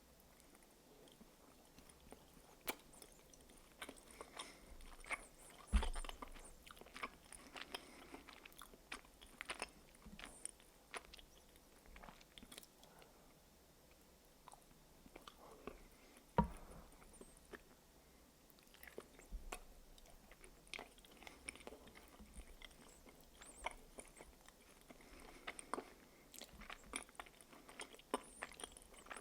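Close-miked biting and chewing of the milk-chocolate shell of a giant Kinder Surprise egg, with many small crisp snaps. Two louder thumps come about six and sixteen seconds in.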